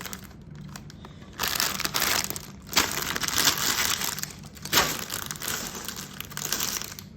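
Lego set packaging being handled and crinkled, in loud rustling stretches with two sharper crackles.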